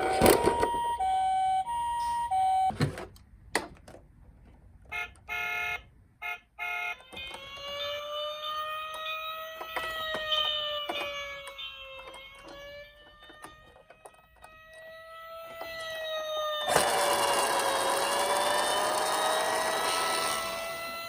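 Electronic toy emergency-vehicle sirens from minicars. First comes a two-tone hi-lo siren that alternates between two notes, then a few clicks, then a slowly rising and falling wail. A steady rushing noise joins under the wail near the end.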